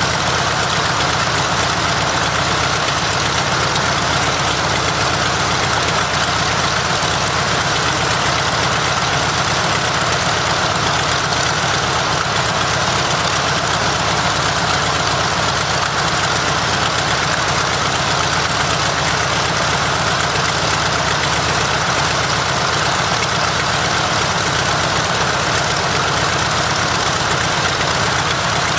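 Mitsubishi A6M Zero fighter's Nakajima Sakae 14-cylinder radial engine running steadily during a ground run, at an even, loud level throughout.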